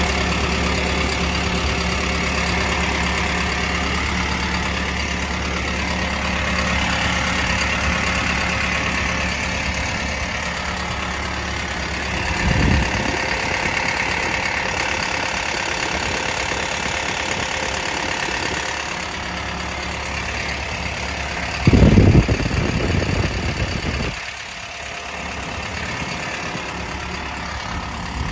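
Komatsu PC170LC-10 excavator's diesel engine idling steadily. A brief low surge comes about halfway through, a louder low rumble a few seconds before the end, and after it the engine sounds quieter.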